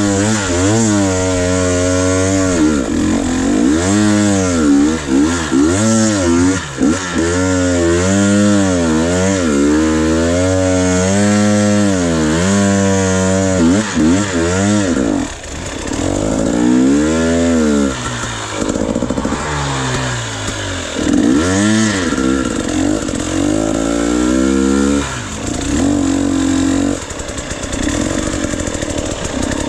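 Dirt bike engine revved up and down over and over as the throttle is worked on and off, a rising and falling rev about once a second. About halfway through it settles into lower, steadier running with occasional blips.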